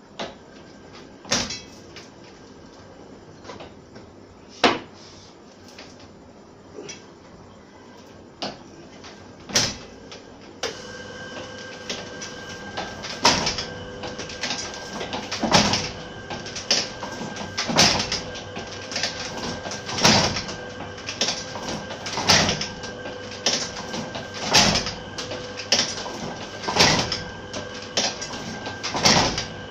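Fifty-year-old platen letterpress. For the first ten seconds there are a few scattered knocks and clicks from the machine. About ten seconds in, a steady hum starts, and the press then runs with a sharp clack each time the platen closes, about one clack a second.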